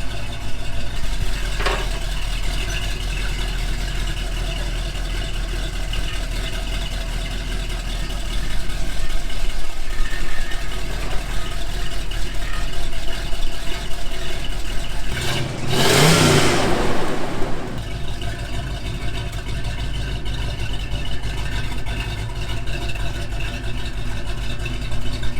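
Buick Riviera's big-block V8 running through its new exhaust, resonators kept, with a steady deep idle that is 'not obnoxious'; it gets louder for several seconds in the middle. About two-thirds of the way through, a loud rushing noise lasts about two seconds.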